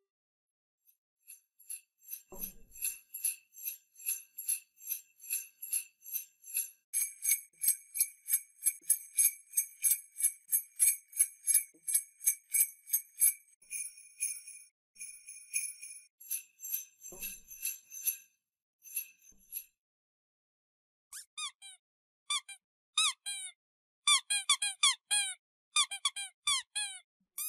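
Small bells jingling in quick, steady shakes. About 21 seconds in, a dog's squeaky toy takes over with short squeaks that glide down in pitch, in quick bunches near the end.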